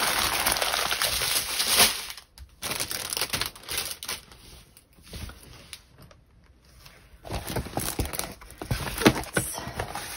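Plastic crinkling and rustling from handling the kit's packaging and canvas. It comes in two spells: a loud stretch at the start, and a second stretch with sharper clicks after a lull in the middle.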